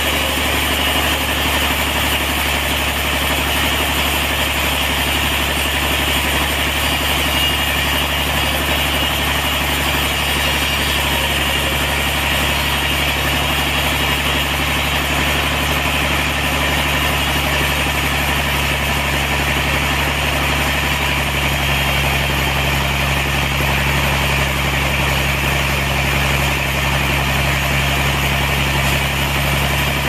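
Large band sawmill running with a steady drone of motor and blade while sawing a big trembesi (rain tree) log. A low hum grows stronger about two-thirds of the way through.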